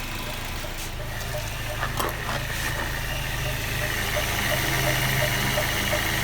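Mazda 6 (GG) engine idling with a light knock repeating about three times a second from the accessory belt drive. The knock appeared after the tensioner bearing and idler pulley were replaced and goes away with the belt off, so the owner rules out the engine itself.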